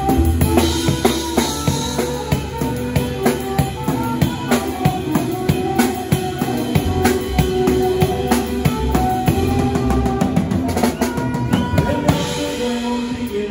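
Live band music: a drum kit beats out a steady rhythm with cymbal and snare hits, under a held saxophone melody.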